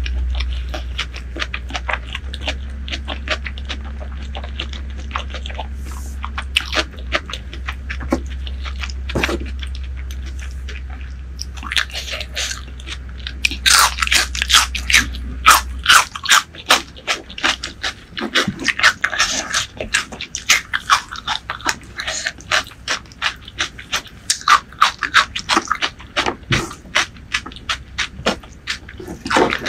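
Close-miked eating: wet chewing, crunching and lip smacks as a person chews rice, chicken heart curry and a bite of green okra. The clicks get dense and loud about halfway in. A steady low hum runs under the first half and stops about halfway.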